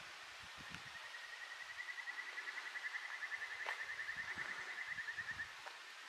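An animal's rapid trill of many short, evenly spaced notes at one steady pitch, starting about a second in, swelling and then fading after about four and a half seconds, over a steady outdoor hiss and soft low thumps of footsteps.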